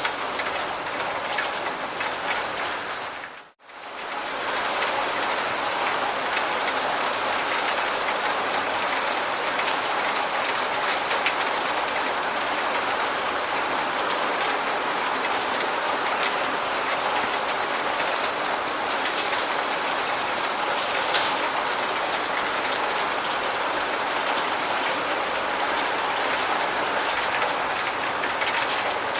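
Steady, heavy rain with fine scattered drop patter. About three and a half seconds in, it cuts out almost to silence for a moment, then fades back up.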